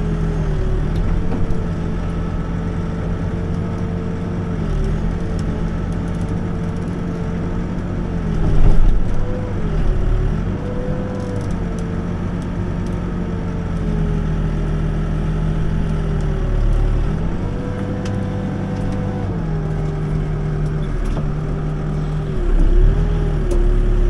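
Backhoe's diesel engine running steadily, its note sagging and recovering several times as it takes load while digging, with a louder surge about nine seconds in.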